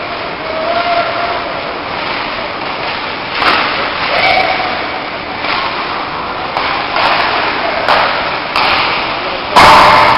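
Ice hockey rink din during play: a steady crowd-and-arena hum with a few voices calling out, sharp knocks of sticks and puck now and then, and one loud crack near the end.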